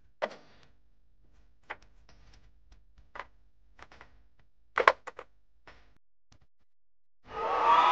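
Hard plastic clacks and knocks, a handful of separate hits with the loudest double knock about five seconds in, as toy jeeps are set into a plastic toy dump truck's bed. Near the end a loud music cue starts suddenly.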